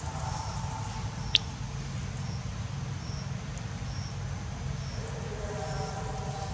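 Forest ambience: a short high chirp repeating about once a second over a steady low hum, with one sharp click about a second and a half in.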